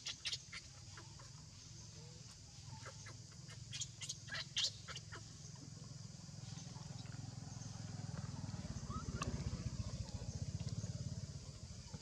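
Short, high squeaks from a baby monkey in quick clusters at the start and around four seconds in, then a low pulsing hum that grows louder through the second half.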